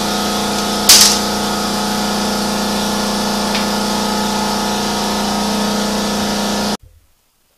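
Electric shop air compressor running with a steady hum and a short loud hiss about a second in; the sound cuts off suddenly near the end.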